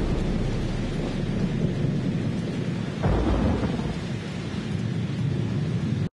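Steady heavy rain, with a low roll of thunder swelling about halfway through; the sound cuts off abruptly near the end.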